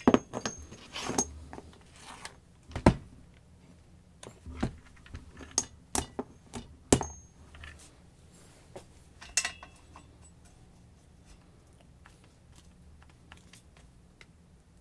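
Scattered metallic clinks and knocks of metal parts and tools being handled, a few sharper clanks about three, six and seven seconds in.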